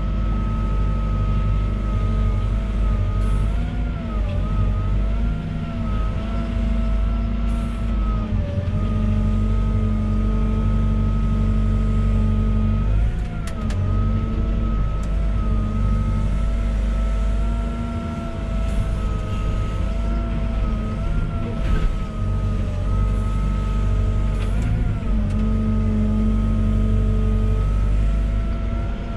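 Volvo EWR150E wheeled excavator's diesel engine running steadily under work, with a steady high whine that dips in pitch briefly several times as the machine loads. A few sharp knocks come through, the plainest about halfway in and again near the end.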